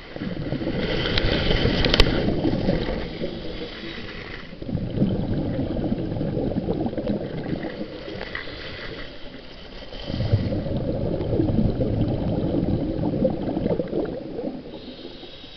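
A scuba diver breathing through a regulator underwater: three long bursts of exhaled bubbles gurgling, with a thinner hiss of inhaling between them.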